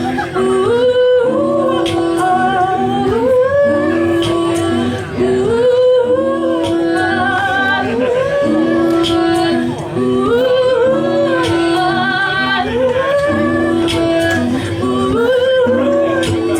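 Wordless a cappella singing, several voices layered in held notes and rising glides that repeat a short phrase every couple of seconds.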